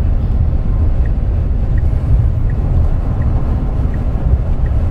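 Steady low rumble of road and tyre noise heard inside a Tesla's cabin while it drives, with no engine sound, and faint regular ticks about every three-quarters of a second.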